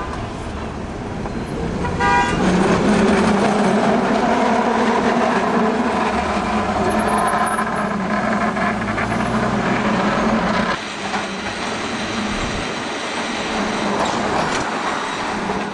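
San Francisco cable car running along its street tracks with a steady rolling noise, its bell rung in a quick run of strokes about two seconds in.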